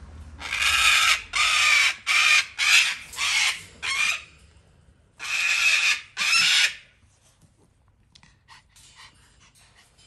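Large parrots screeching: six harsh calls in quick succession, about a second's pause, then two more.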